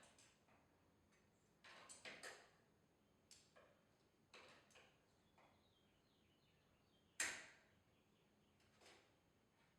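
Faint, scattered knocks and clinks of hand work on garage-door torsion-spring hardware, about six separate hits; the loudest, about seven seconds in, rings briefly.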